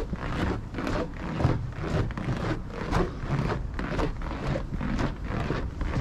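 Footsteps on a snow-covered path at a steady walking pace, about two steps a second, over a low rumble.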